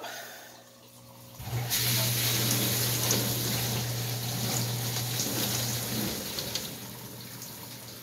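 Dishwasher wash pump starting up about a second and a half in, with a steady motor hum and water spraying against the tub and panel. The water has hand dish soap in it. The hum stops about six seconds in, and quieter water noise carries on.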